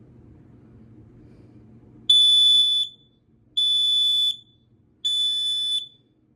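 First Alert (American Sensors rebrand) 770 LBX smoke alarm sounding on test with its piezo horn. It gives three loud, shrill beeps of about three-quarters of a second each, about a second and a half apart, starting about two seconds in.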